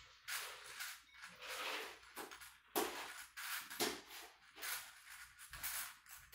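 A person doing knee circles while lying on a wooden floor: a series of short, irregular swishes from clothing rustling and breathing as the legs circle.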